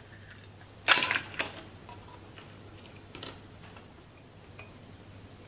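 Plastic clicks and a short clatter from a Blu-ray drive's disc clamp mechanism and disc being handled and moved, loudest about a second in, with a few lighter clicks around three seconds in.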